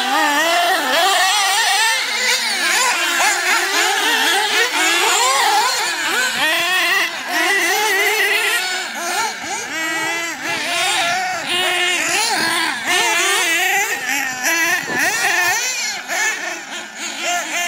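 Several radio-controlled nitro buggies and truggies racing, their small glow-fuel engines revving up and down and overlapping in a continuous high-pitched buzz.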